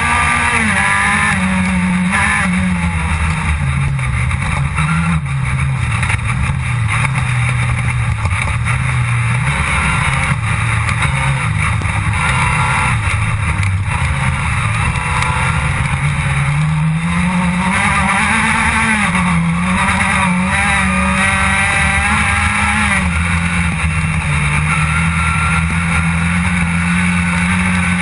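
Rally car engine running hard, heard from inside the stripped, caged cabin, its pitch rising and falling as the throttle and gears change, with a steady rise about two-thirds of the way through.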